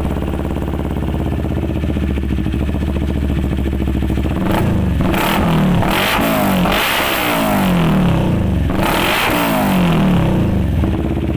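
Motorcycle engine breathing through an aftermarket Villain slip-on muffler during a sound test. It idles steadily for about four seconds, is blipped up in several quick revs that rise and fall, and settles back to idle near the end.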